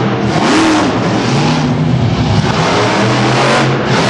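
Bigfoot monster truck engine revving hard, its pitch rising and falling several times as the throttle is worked.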